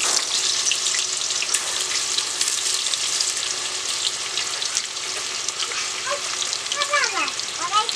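Raw banana slices sizzling and crackling in hot oil in a kadai as fresh slices drop straight in from the slicer, with a steady hiss full of quick crackles.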